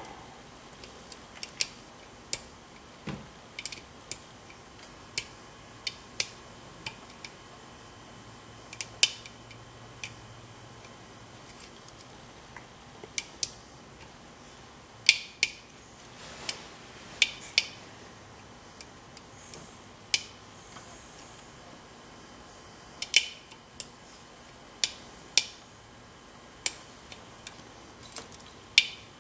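A lock pick and tension wrench working in an ASSA Twin high-security lock cylinder: sharp, light metallic clicks at irregular intervals, roughly one a second, as the pick moves over the pins.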